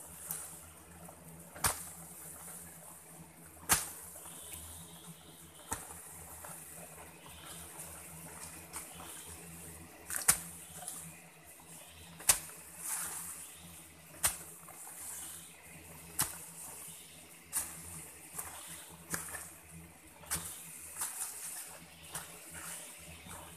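A hoe chopping into earth, a sharp strike about every two seconds that comes faster near the end, each followed by loose soil scattering.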